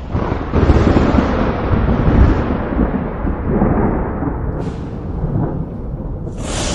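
A rolling peal of thunder: a long rumble that swells just after the start and slowly dies away, with a sharp crack near the end as another peal begins.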